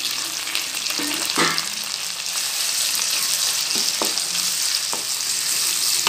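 Chopped tomatoes and shallots sizzling in hot oil in a steel kadai, just after the tomatoes go in, with a spatula stirring them and scraping the pan a few times.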